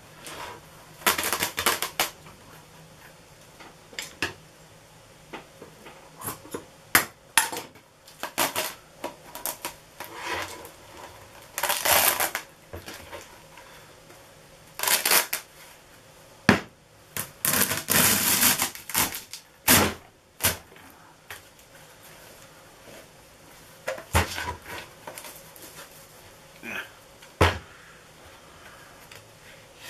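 Rustling and crinkling of breather batting and perforated plastic release film being pulled by hand off a cured composite tube, in irregular bursts with a few sharp knocks of the tube being handled.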